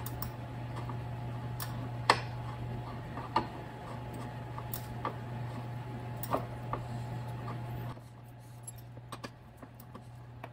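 Irregular light metallic clicks and ticks from a left-hand-threaded bicycle pedal being turned by hand into the crank arm. A steady low hum sits underneath and quietens about eight seconds in.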